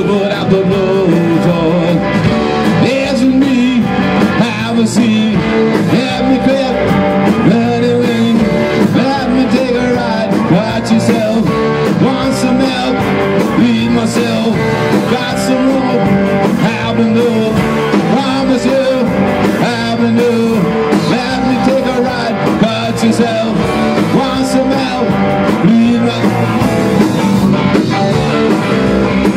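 Rock band playing live: two electric guitars over a drum kit, strumming and beating steadily through a passage without sung words.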